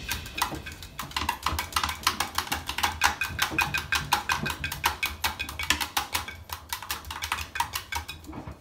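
A dog's claws tapping and scrabbling against the glass door of a front-loading washing machine, in rapid, irregular clicks, over a low hum from the running machine.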